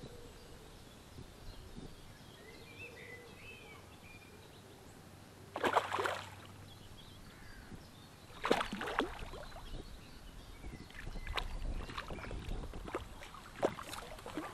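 Water splashing as a hooked fish thrashes at the surface: two loud splashes about six and eight and a half seconds in, then smaller splashes and knocks. A bird chirps briefly near the start.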